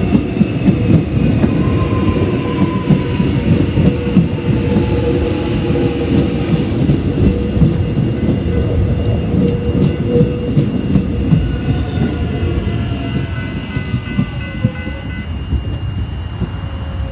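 A train passing over a level crossing. Its wheels rumble and clatter over the rail joints, and steady high tones and slowly falling whines sit above the rumble, which eases slightly toward the end.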